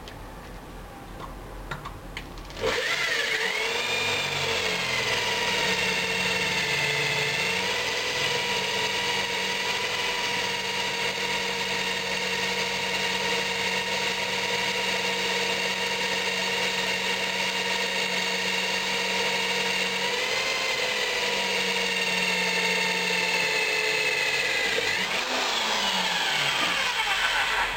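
Corded electric hand drill boring a hole through a metal sickle blade: the motor starts about two and a half seconds in, runs with a steady high whine under load for over twenty seconds, its pitch shifting a little as it bites, and stops just before the end.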